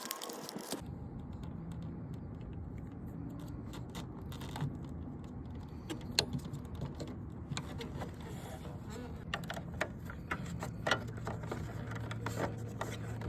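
Scattered light clicks, taps and small rattles of hands handling the tail-light parts, the bulb, socket and fasteners, over a steady low hum.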